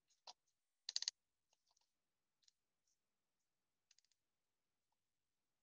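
Faint computer mouse clicks, scattered short clicks with some in quick runs of two or three, the loudest run about a second in and another near four seconds.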